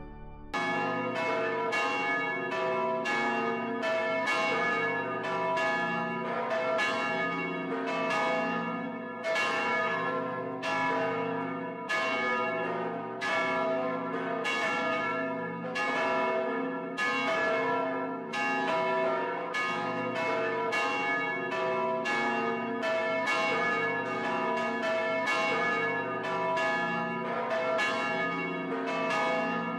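Several church tower bells striking over and over in a steady peal, each stroke ringing on over the next, beginning about half a second in. It is helgmålsringning, the Saturday-evening bell ringing that rings in the weekend.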